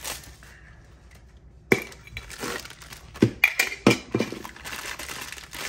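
Funko Soda collectible tin can being opened by its pull-ring lid: a sharp metallic pop as the seal gives about two seconds in, then a quick run of sharp metal clicks and clinks a second or so later.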